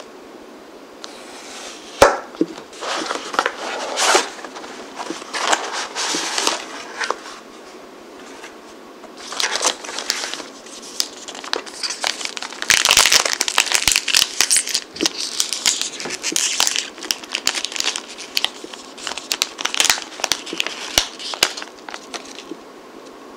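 Crinkling and rustling of a cookie box and a plastic-wrapped green tea langue de chat cookie being handled and opened, in two bouts of irregular crackling, the busiest near the middle. A single sharp click about two seconds in.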